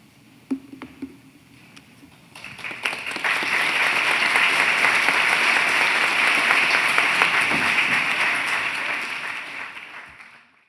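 Audience applauding. It begins a little over two seconds in, after a few knocks, holds steady, then fades out near the end.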